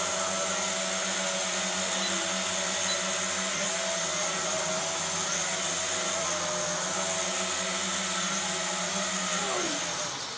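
Small toy quadcopter drone's electric motors and propellers whirring steadily at speed, a high, even buzz. Near the end the pitch slides down as the motors spin down.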